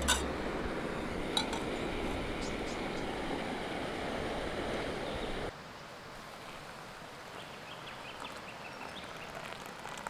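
Small canister gas stove burner hissing steadily, with sharp metal clinks of a pot being handled at the start and about a second and a half in. The hiss cuts off suddenly about halfway through, and water is then poured into a small metal camping pot, splashing quietly.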